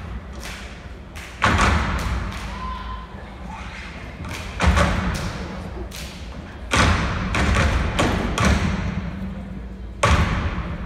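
Step team stomping in unison on a stage: a handful of loud, sharp thuds spaced a couple of seconds apart, each ringing out in a long echo through a large hall.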